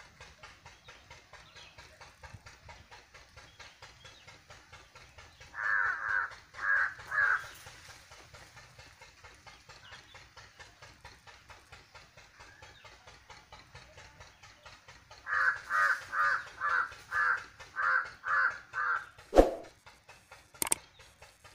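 Harsh, rasping animal calls in two series: three about six seconds in, then eight in quick succession from about fifteen seconds in, roughly half a second apart. Near the end come a swoosh and a sharp click.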